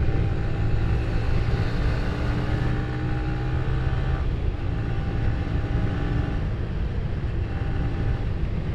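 Yamaha Vixion R's single-cylinder engine running under way at speed, a steady engine note that changes about four seconds in, with wind noise on the microphone.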